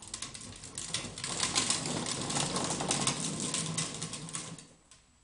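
A toy car rattling as it is pushed along the ground: a dense run of rapid clicks for about four and a half seconds that then stops.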